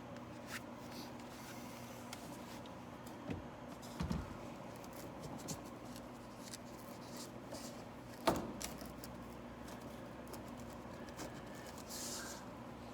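Light handling noises as a sun visor and its screws are fitted inside a car: scattered small clicks and soft knocks, the sharpest about eight seconds in, with a short hiss near the end.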